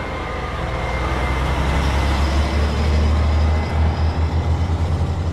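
A motor vehicle's engine running, a low rumble growing louder over the first few seconds, then turning to a fast, uneven throb about two-thirds of the way through.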